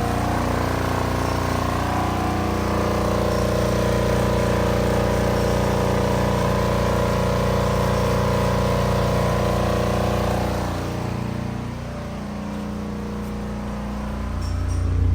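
Volkswagen Jetta engine idling with a steady, many-toned hum, the noise and vibration that come with the air conditioning switched on. About eleven seconds in the sound drops and quietens, then grows louder again near the end.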